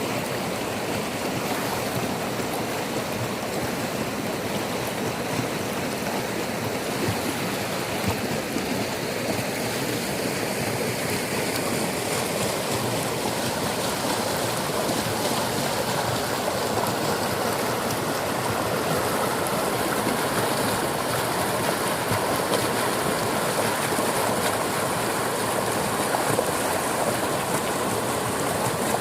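Rushing floodwater: a steady, dense rush of churning water that grows slightly louder through the second half.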